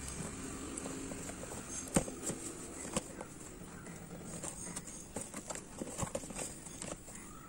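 Cardboard parcel being handled: fingers tapping and scraping on the box and its packing tape. There are two sharp taps about two and three seconds in, then a run of quicker, smaller taps and scratches.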